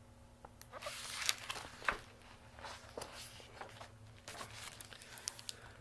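Faint, scattered rustles and soft knocks of a picture book being handled and its pages turned.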